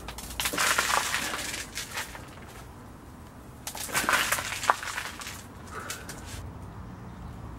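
Handfuls of potting compost dropped into a plastic plant pot and pressed down by hand, making a crumbly, gritty rustle. It comes in two spells, the second about four seconds in.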